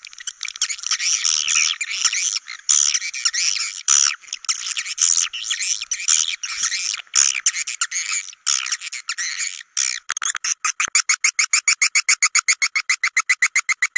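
Swiftlet calls from a lure recording made to call swiftlets into a bird house and get them to roost: a dense twittering chatter of many birds, which gives way about ten seconds in to a fast, even train of chirps, about six or seven a second.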